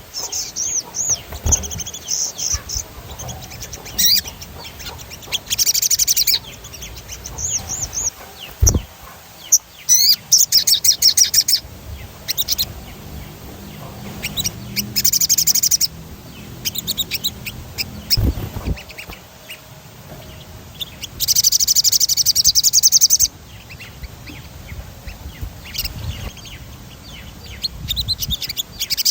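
Sogon songbird singing in repeated bouts of rapid, high-pitched rolling trills, the longest lasting about two seconds, with softer chirps between them. Two low thumps are heard, one about a third of the way in and one past the middle.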